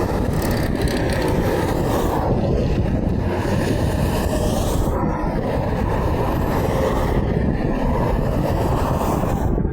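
Steady rushing noise of road traffic with wind on the microphone; no truck horn sounds.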